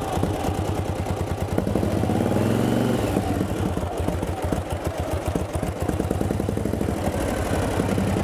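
1937 Harley-Davidson Knucklehead's 61-cubic-inch overhead-valve V-twin running, revving up about two seconds in as the bike pulls away, then running steadily as it rides off.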